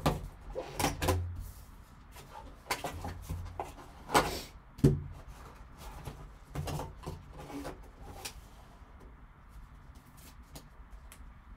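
Handling noise from a cardboard card box, a pack wrapper and a plastic card holder: scattered rustles, taps and clicks, with two sharper knocks about four and five seconds in.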